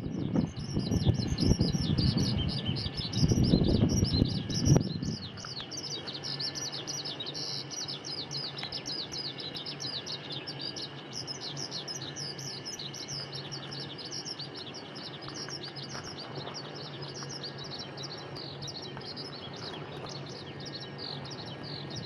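Dense chorus of birds chirping without pause, many quick downward-sliding notes overlapping. A loud low rumbling noise runs under it for the first five seconds or so, then gives way to a faint steady low hum.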